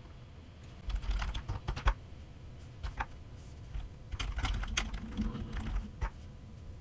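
Typing on a computer keyboard to enter a terminal command, in two quick runs of keystrokes: one about a second in and another around four seconds in, with a few single keystrokes between them.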